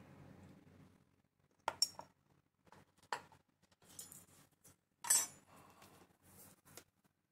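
Light clicks and clinks of steel tweezers and a small IF-transformer coil assembly being handled and set down on a wooden workbench: several separate sharp taps, the loudest about five seconds in.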